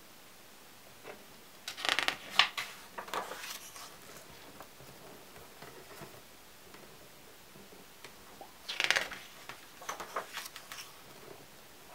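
Pages of a photo album turned by hand, twice: a crisp paper rustle and flap about two seconds in, and again about nine seconds in.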